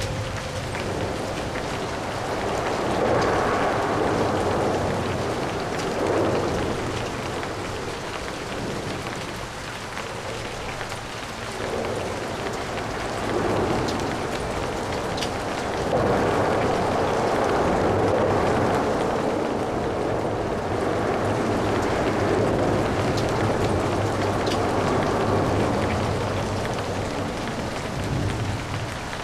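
Steady light rain with traffic on wet roads: vehicles pass with a rise and fall of tyre hiss several times, the longest swell in the second half. A steady low traffic hum runs underneath.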